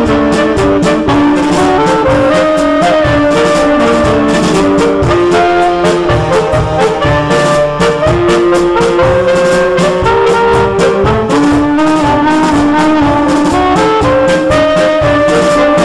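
Saxophone quartet of four saxophones of different sizes, all played by one multitracked saxophonist, performing a pasodoble: several held melodic lines moving together in harmony over steady percussion strikes.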